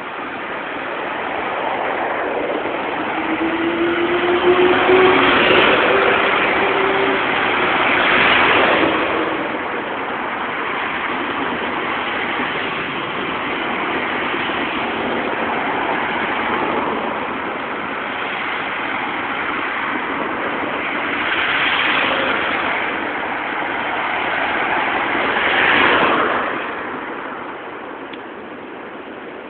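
Road traffic on a city street: a city bus and cars drive past one after another, each pass swelling and fading, over a steady hum of tyres and engines. Four passes stand out as the loudest, and an engine whine is heard from about three to seven seconds in.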